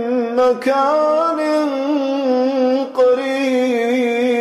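A man reciting the Quran in the melodic tajweed style, drawing out one word as a long, wavering, ornamented held note.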